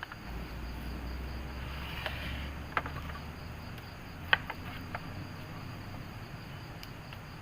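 Night insects, crickets among them, chirring steadily, with a few sharp clicks and knocks; the loudest comes a little past the middle.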